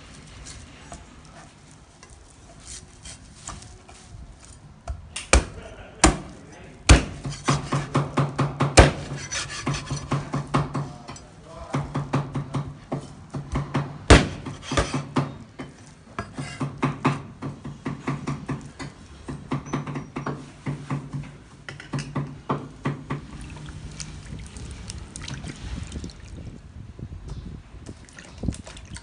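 Cleaver chopping through raw pork ribs on a wooden cutting board: a few hard single chops among stretches of quick, repeated chopping, the board giving a low knock with each blow.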